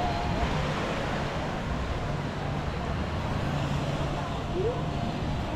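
Steady wash of ocean surf on a beach, with wind on the microphone and faint voices in the background.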